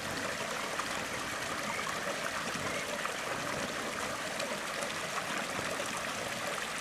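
Small rock cascade in a garden pond: pumped water spilling over stones into the pool below, a steady splashing trickle.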